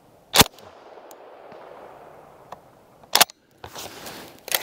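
Auto-Ordnance Thompson submachine gun in .45 ACP firing single aimed shots. Two sharp cracks about three seconds apart, the first trailing off in a long fading echo, then another crack right at the end.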